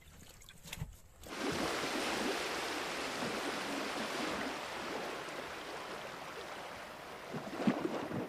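A rushing, splashing liquid sound effect that starts abruptly about a second in and slowly dies away, laid under a liquid-splash intro animation. It is preceded by a few faint small splashes of a hand in the shallow water of a boat's hold.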